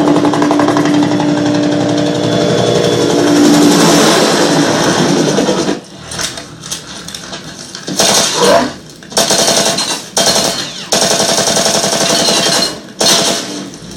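Action-film battle soundtrack played through a TV: a loud sustained droning tone for about the first six seconds, then repeated bursts of heavy automatic gunfire with short gaps between them.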